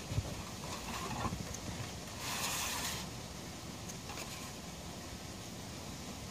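A few footsteps in rubber boots on a wooden deck, then a plastic jug being picked up and handled at a table. There is a brief hiss a little over two seconds in.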